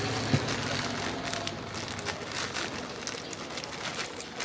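Clear plastic bag of popcorn crinkling and rustling in a hand: a steady run of small crackly clicks, with one sharper click just after the start.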